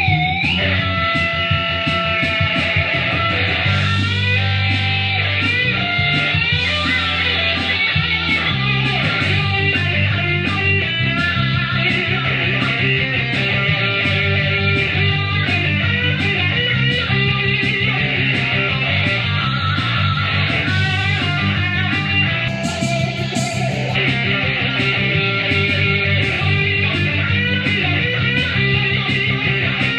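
Electric guitar playing a rock lead line full of string bends and vibrato, over a backing track with a steady bass line and a beat ticking about twice a second.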